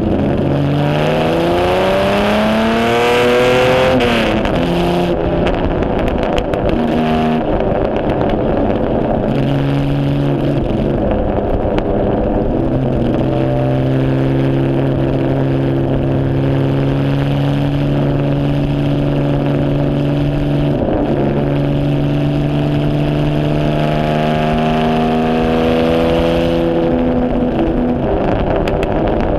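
A 1951 HW Alta-Jaguar's Jaguar straight-six engine, heard from the cockpit, accelerating hard, its note climbing over the first few seconds. It changes gear at about four seconds, then runs at a near-steady pitch with slow rises, easing off just before the end.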